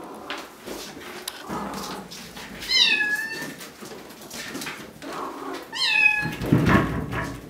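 Bengal kitten meowing twice, two short high-pitched mews that fall in pitch, about three seconds apart. A dull low rumble follows just after the second mew.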